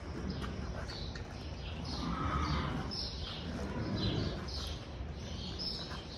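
Small birds chirping over and over, short falling chirps about two or three a second, over the low dull thuds of a horse's hooves in deep arena sand that swell about two seconds in and again near four seconds.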